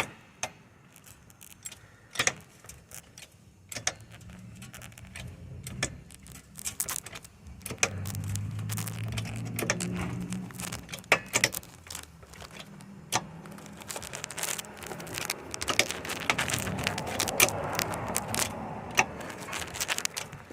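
Small car jack being worked by hand, with irregular sharp metal clicks and clinks from the jack and its handle.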